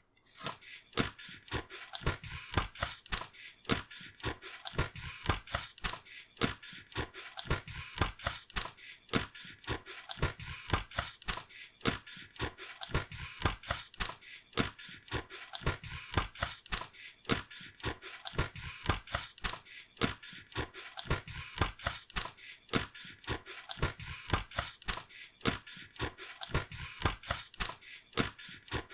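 Scissors cutting paper fast: rapid, regular snips, several a second, each a crisp paper-shearing crunch with a light blade click.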